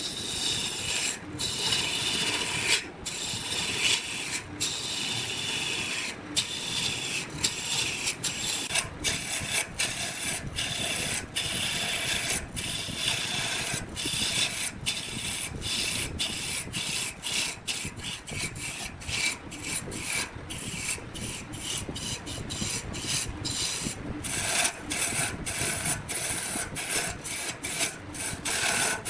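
Wood being worked on a spinning lathe: a steady rasping scrape, broken by many short gaps throughout.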